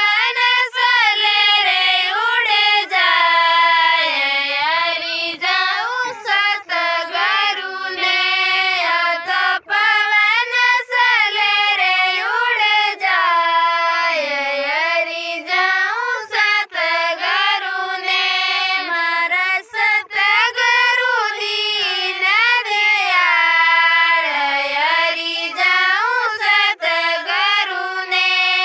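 A woman singing a Rajasthani devotional bhajan solo, in a high voice with a sliding, ornamented melody and no instruments.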